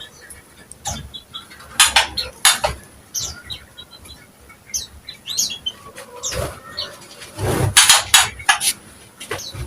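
Caged cucak ijo (green leafbird) singing: short, scratchy notes in quick clusters, mixed with small high chirps.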